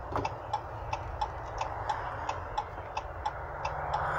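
A truck's turn-signal indicator clicking steadily, about three clicks a second, over the low hum of the idling engine.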